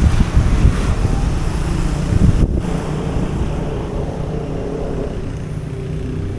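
Street traffic: a motor vehicle engine running close by. For the first couple of seconds, wind buffets the microphone with a low rumble, and then a steadier engine hum takes over.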